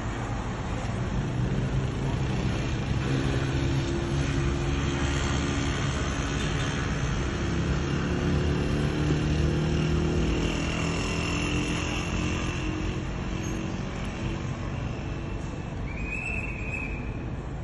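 Road traffic: motor vehicle engines running with a steady low hum over broad road noise, and a short high-pitched tone near the end.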